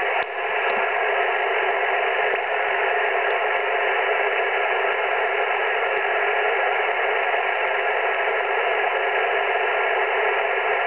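Shortwave amateur radio receiver's speaker giving steady band noise, an even hiss squeezed into the narrow voice passband, tuned to 21.252 MHz in the 15-metre band with no station coming through. Two faint clicks come under a second in.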